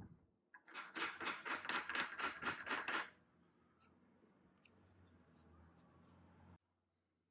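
Hand scraper being pushed in a quick run of about a dozen short strokes over cast iron, the final scraping passes on a milling machine's ways, then faint rubbing.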